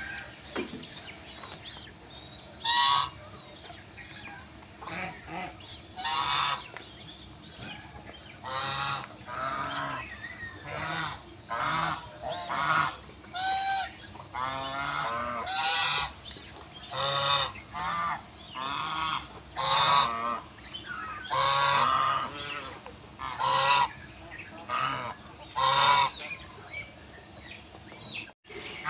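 Domestic white geese honking repeatedly, a short call every second or two.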